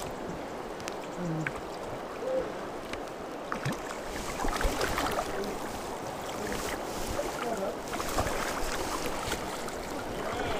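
Shallow river current rushing and lapping around a wading angler, with splashes as a landing net is dipped and worked through the water to scoop up a small trout.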